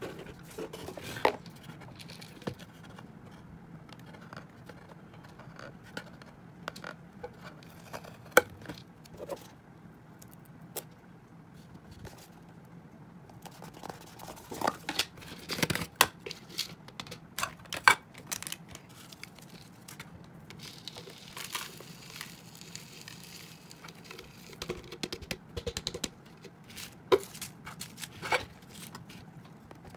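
Plastic food containers and their lids being handled and set down: scattered clicks and knocks of plastic, busiest about halfway through. A few seconds of soft rustling past the middle, like dry hamster seed mix shifting in a tub.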